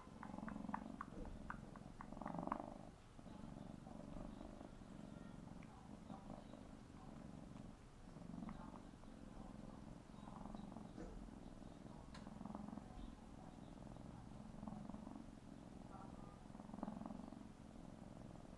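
Young tabby kitten purring, the purr swelling and fading with each breath, with a run of quick lip-smacking clicks in the first few seconds.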